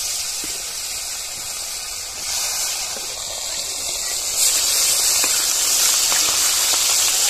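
Marinated fish pieces sizzling in hot mustard oil in a kadhai, a steady loud hiss. The sizzle grows louder about two seconds in and again a little after four seconds, as more pieces go into the oil.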